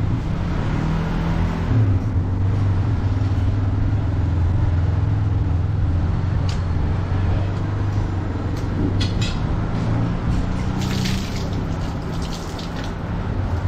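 A vehicle engine running with a steady low rumble throughout, with a few light clicks in the second half. Near the end, water is poured from a mug over a hanging goat carcass.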